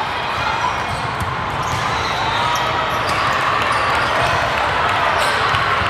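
Indoor volleyball rally: the ball is struck and played on the court, with sharp hits over the steady din of a large, echoing hall.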